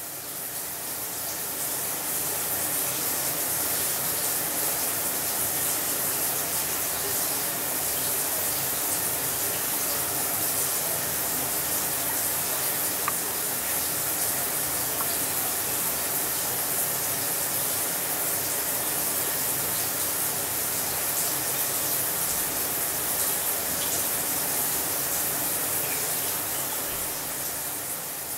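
Water spraying steadily from a square chrome single-mode shower head, an even hiss that fades in and fades out near the end.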